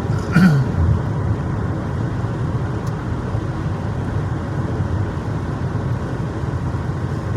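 Steady road and engine noise heard from inside a moving car's cabin, driving in the rain.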